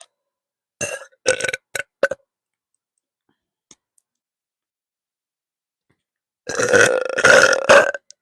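A woman burping: a few short burps about a second in, then one long, loud burp lasting about a second and a half near the end.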